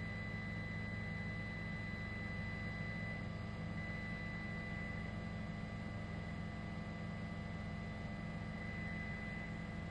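A steady, unchanging drone: a low hum under a thin high whine, with a faint hiss. It runs on without any break or change.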